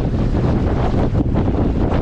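Strong wind buffeting the microphone: a loud, steady low rumble with gusty flutter.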